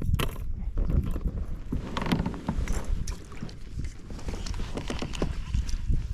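Fishing gear handled aboard a plastic fishing kayak: a reel winding with irregular small clicks and knocks, over a low rumble.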